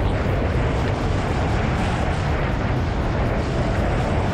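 Snowmobile running steadily at cruising speed, around 60 mph, its engine drone mixed with a steady rush of wind and track noise.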